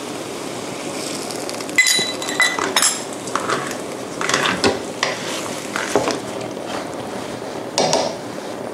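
Spatula scraping and knocking against a wok as vegetables and tofu are stirred through a sauce just thickened with tapioca starch slurry, over a steady low sizzle. There is a ringing metallic clink about two seconds in, followed by irregular scrapes and clanks.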